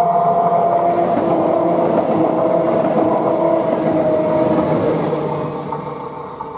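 Electric passenger trains, among them a Stadler KISS double-deck multiple unit, passing close by at speed: wheels running over the rails under a steady motor whine that sinks slightly in pitch. The noise dies away over the last second or two as the trains pull away.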